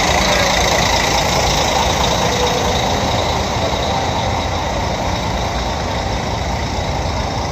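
Steady diesel engine drone of idling heavy vehicles and ship machinery on a ferry's vehicle deck, with a faint high steady whine above it.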